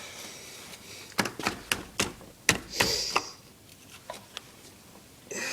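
A handful of sharp metallic clicks and knocks, several in quick succession, then two faint ticks, as the ATV's rear brake caliper holder is slid over the axle and onto the bearing carrier.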